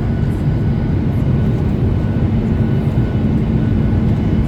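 Steady low roar inside the cabin of an airliner in flight, with a faint steady hum riding on it.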